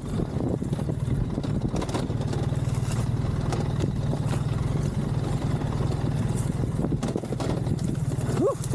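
Adventure motorcycle engine running steadily at low speed off-road, with a few scattered knocks over it. Near the end a voice cries out.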